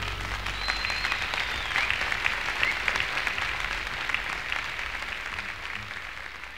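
Live concert audience applauding and whistling as the song's final notes stop, the clapping fading out toward the end.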